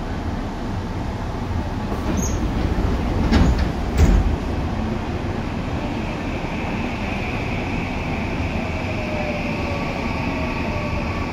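Tokyu 8500 series electric train, a field-chopper-controlled car, heard from inside while running: a steady rumble of wheels and underfloor equipment. Sharp clunks come about three and four seconds in. From about six seconds a steady high whine sets in, with a faint tone sliding down in pitch near the end.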